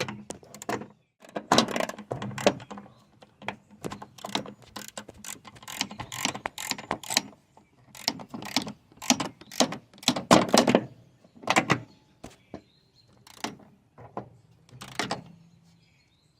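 Irregular clicks and knocks of hand tools and metal as the bolts of a clutch pedal bracket are fitted and tightened.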